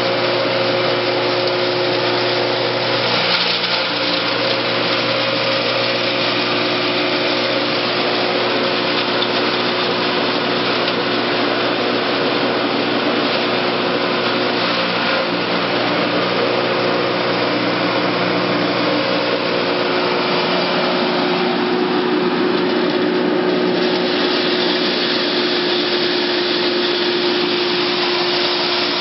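Electric forage and grain chopper (an MS-360 hammer mill with cutting knives, driven by a 3 kW single-phase motor) running at speed while chopping green fodder fed into its chute. A steady hum runs under a loud rushing noise that swells briefly a few seconds in and again about three-quarters of the way through.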